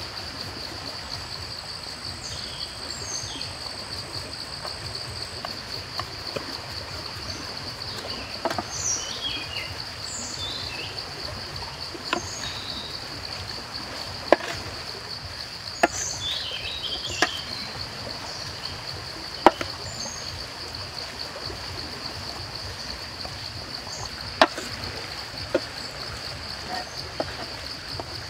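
Steady high-pitched insect drone with scattered bird chirps. From about halfway, a handful of sharp knocks as a wooden spatula strikes a stainless steel tray while mixing a chopped salad.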